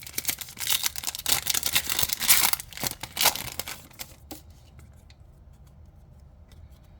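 Crinkling and rustling of a foil booster pack wrapper and trading cards being handled, dense for about four seconds, then dying down to a few soft clicks.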